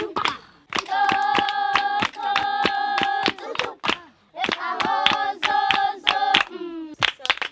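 A group of Ju/'hoansi San singers, mostly children, singing a clapping song: high voices on held notes over quick, steady hand-clapping. The song breaks off briefly about half a second in and again around four seconds in.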